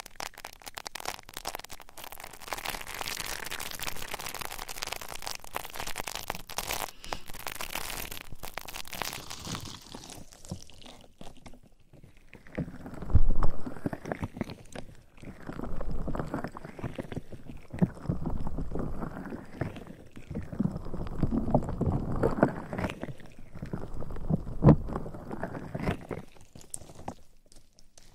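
Close-miked ASMR ear rubbing: hands rubbing and scratching on the microphone's ears. For about ten seconds it is a fast, dense crackling. From about twelve seconds in it becomes slower, softer strokes, each rising and falling, roughly every two seconds.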